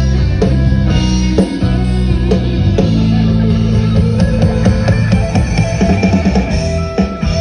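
Live band music at a loud sound check, played through a large PA system: drum kit, heavy bass and guitar.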